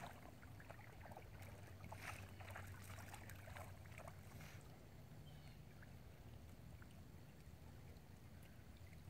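Faint splashing and sloshing of shallow water as two North American river otters thrash over a catfish at the shoreline, in a few short bursts in the first half and quieter after, over a low steady rumble.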